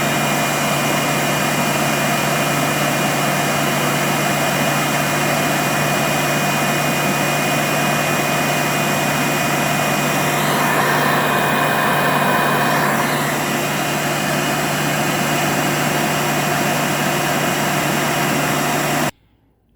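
Hoover Elite U4717-930 upright vacuum cleaner's motor running steadily at full speed, with a low hum and a high whine; the motor has new carbon brushes and a replaced front bearing. The tone briefly brightens about halfway through, and the sound cuts off abruptly near the end.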